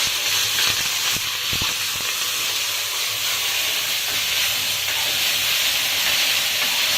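Laksa leaves frying in hot oil in a pan: a steady, loud sizzle, with a few low knocks of stirring around a second and a half in.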